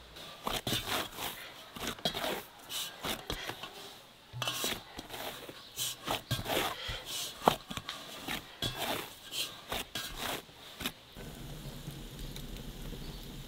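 Hands kneading bread dough in an enamel bowl: irregular pressing and folding sounds, with one sharper knock about seven seconds in. About eleven seconds in it changes to a wood fire burning in the mud oven, a low steady rush.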